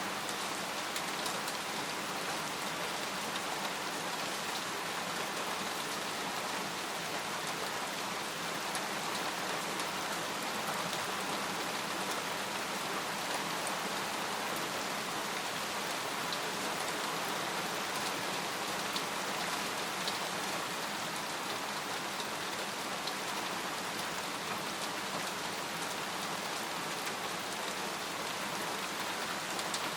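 Steady rain falling on a tent, with scattered single drops ticking through the even patter.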